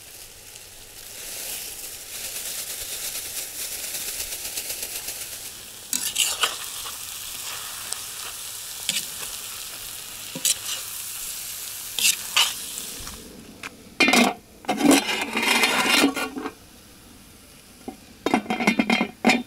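Peas and vegetables sizzling in a 10-litre kazan, with a metal spatula scraping and tapping the pot as they are stirred. In the last few seconds come louder bursts of metal scraping and clatter from the pot and its lid.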